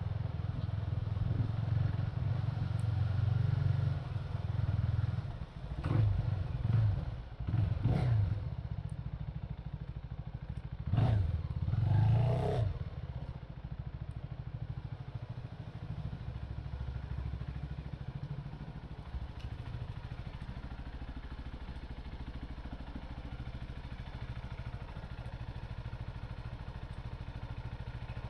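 CFMoto 250NK's single-cylinder engine running at low speed, with several short throttle revs about six to thirteen seconds in, then settling to a steady idle.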